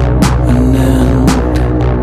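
Electronic soundtrack music with a steady deep bass drone under a held mid-pitched tone, struck by a sharp percussive hit about once a second.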